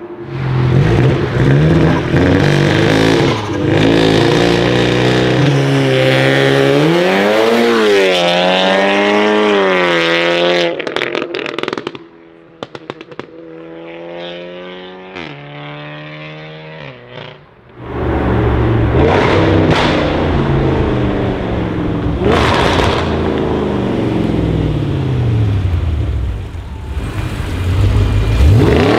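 Modified performance cars heard one after another: loud engines and exhausts accelerating hard, revs rising and dropping at each gear change. About midway a quieter car pulls away through its gears. Near the end a deep engine is loud again.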